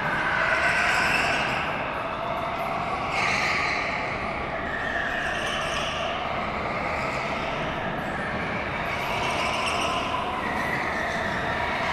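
Several go-karts running laps, their motors rising and falling in pitch every few seconds as they speed up and slow down through the corners.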